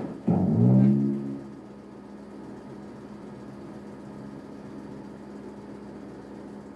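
Slot machine game sound: a low note swells up in the first half second and fades by about a second and a half, leaving a steady low hum from the machine.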